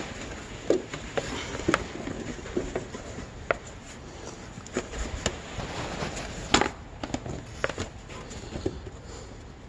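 Stiff plastic sheet being handled and pressed up against a truck's wheel well and frame while it is test-fitted and marked out as a splash shield: irregular light taps, scrapes and rustles, with a sharper knock about six and a half seconds in.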